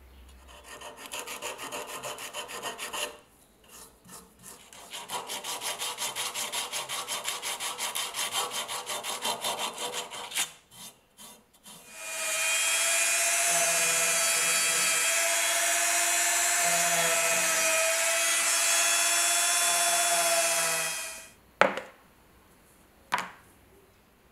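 Rhythmic hand scraping strokes on a metal scabbard, about three a second, with a short break. Then a small electric power tool runs at a steady pitch for about nine seconds and stops. Two sharp knocks follow near the end.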